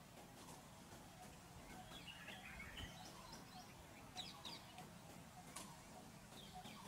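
Faint bird calls: short chirping phrases that come and go over a quiet, low, steady background, with a couple of sharp ticks.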